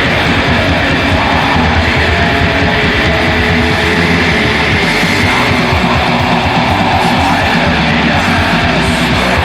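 Black metal song: a dense, loud, unbroken wall of distorted electric guitar with a rapid pulse underneath.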